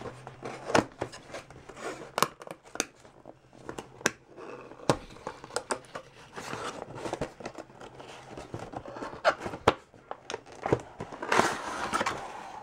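Cardboard toy box with a clear plastic window being opened by hand: scattered sharp clicks and scrapes as the end flap is worked open, then a denser crinkling rustle near the end as the plastic tray slides out.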